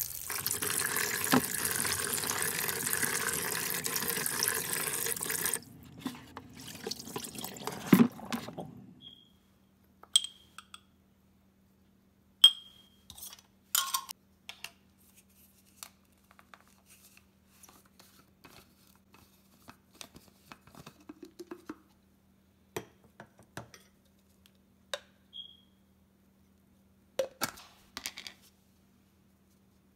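Kitchen tap water running into a plastic bowl as raw meat is rinsed by hand, loud for the first few seconds, softer after, and stopping about nine seconds in. After that come scattered light clicks and clinks of a spoon and bowls on a countertop.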